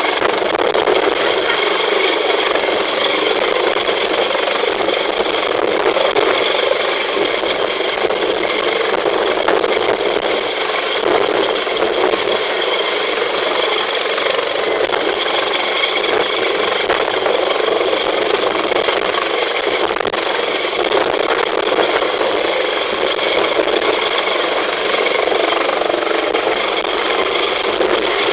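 Turbine helicopter hovering low: a steady, loud rush of rotor and engine noise with a constant high turbine whine.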